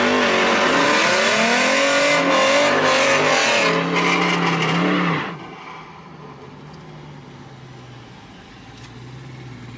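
Muscle car engine at full throttle, heard inside the cabin on a drag-race run. Its pitch climbs in rising sweeps through the upshifts, then the throttle closes a little after five seconds and it falls to a low, quiet hum as the car coasts.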